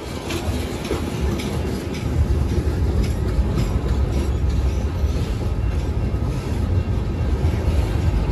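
Freight train cars, boxcars and tank cars, rolling past at a grade crossing: a steady low rumble that grows louder about two seconds in, with wheel clicks over the rails in the first few seconds.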